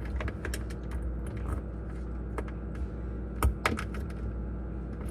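Small plastic clicks and taps as a refrigerator light housing is worked back into place by hand, with one louder knock about three and a half seconds in.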